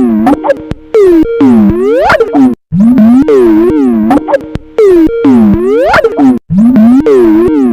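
Skype ringtone playing on a loop, loud and heavily pitch-warped, its notes swooping down and back up in pitch. The phrase repeats about every three and a half to four seconds, with a brief cut-out between repeats.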